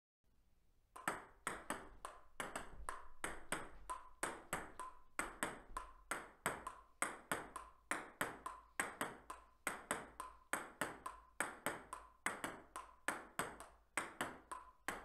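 Solo table tennis rally against the folded-up upright half of a ping pong table. The plastic ball strikes the paddle, the upright board and the tabletop in a quick, even run of sharp clicks that starts about a second in and keeps going.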